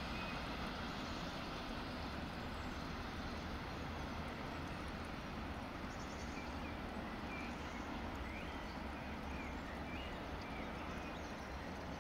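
Mixed freight train rolling away, a steady rumble of wagon wheels on the rails that slowly fades. A few short bird chirps come in during the second half.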